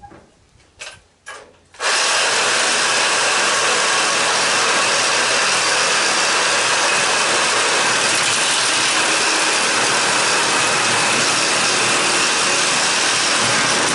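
A few light metal clicks, then about two seconds in a power tool starts and runs loud and steady without letup while parts are being cut and removed from a scrap AC condenser unit.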